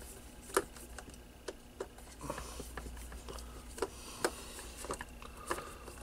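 Hands handling small plastic parts on a radio's back panel: several sharp clicks and taps at uneven intervals, with a faint steady whine underneath.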